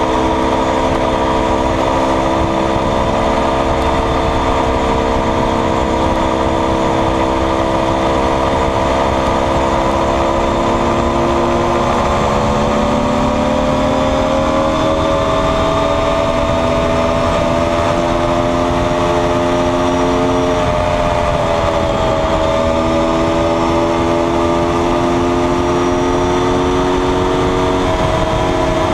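Aprilia Tuono V4R's V4 engine running at steady highway speed, heard from on the bike with wind rush. The engine note rises slowly, dips briefly about two-thirds of the way through, then holds steady.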